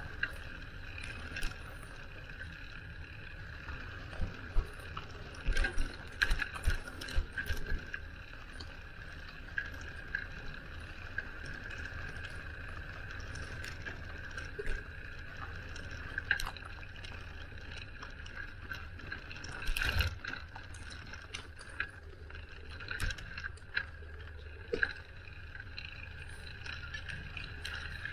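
Riding noise from a bicycle on a city street: a low rumble of wind and tyres with frequent knocks and rattles from bumps in the surface, a cluster of them a few seconds in and a louder one about two-thirds of the way through, over a steady high-pitched whine.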